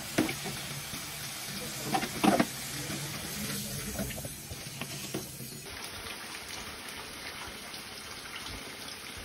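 Hot oil sizzling in a karahi as fried potato wedges are scooped out with a perforated steel skimmer, with a few light knocks of the skimmer against the pan about two seconds in.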